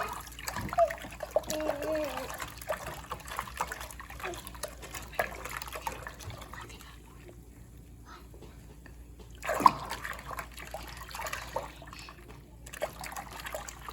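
Water swirling down a kitchen sink drain in a whirlpool, trickling and splashing, with a sharp louder splash about ten seconds in.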